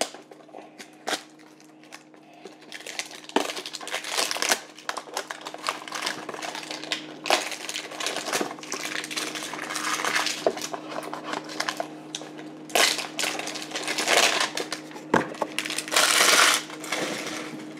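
Thick plastic shrink wrap on a trading-card hanger box being picked at and torn open, crinkling and crackling in irregular bursts with scattered sharp clicks.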